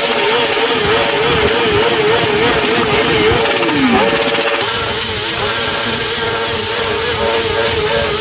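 Stock inline-four superbike engine revved hard while standing, bouncing on the rev limiter in a fast wobble. The revs fall away about four seconds in, then climb back and hold steady near the top.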